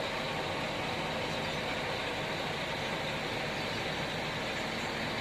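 Steady running noise of a parked coach bus idling, heard from inside the driver's cab.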